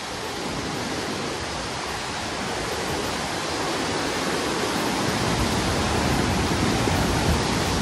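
Floodwater rushing through the open sluice gates of the Koshi barrage: a steady rushing noise that grows gradually louder.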